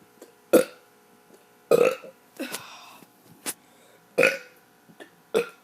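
A child burping over and over: about six short burps, a few of them loud and the rest smaller.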